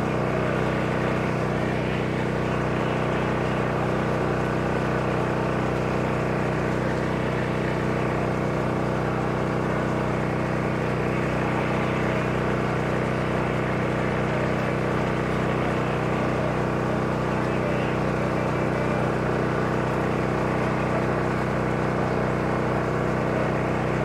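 Steady drone of an engine running at an even speed, a hum of several fixed tones that never changes.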